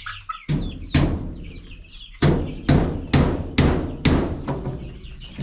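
A hammer striking wood with about eight sharp blows, a pair near the start, then a quicker run of about two a second from about two seconds in. Chicks are peeping faintly underneath.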